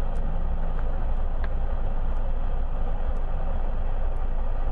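Land Rover trials vehicle's engine pulling up a steep muddy slope, heard at a distance over a steady low rumble.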